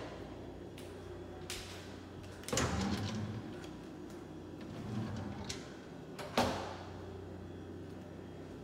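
Wooden kitchen drawers and cabinet doors being opened and shut: a few knocks, with a slide and knock about two and a half seconds in and the sharpest knock about six seconds in.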